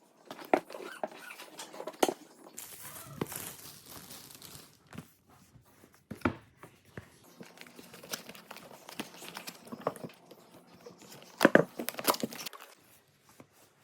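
Packaging being opened by hand: crinkling and tearing of wrapping with scattered clicks and handling knocks, the loudest knocks coming together about eleven and a half seconds in.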